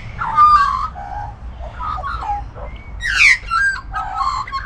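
Australian magpies calling: a run of short whistled calls that slide up and down in pitch, several in quick succession.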